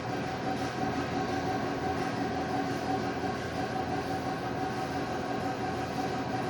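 Steady mechanical drone: a constant hum holding a few fixed pitches over a rough, rapidly pulsing low rumble, unchanging in level throughout.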